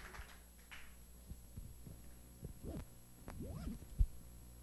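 Quiet room tone with a steady low hum and a few faint, scattered sounds, then one brief low thump about four seconds in.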